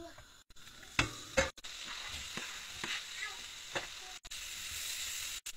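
Sliced onions sizzling in hot melted butter in a frying pan, a steady hiss. Two sharp knocks come about a second in.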